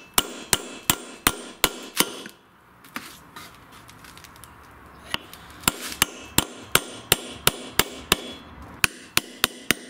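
Ball-peen hammer striking a steel pin punch to drive an old bushing out of a lawn tractor's front wheel hub: sharp metal taps about three a second. A run of about six strikes, a pause of about three seconds, then a longer run of strikes.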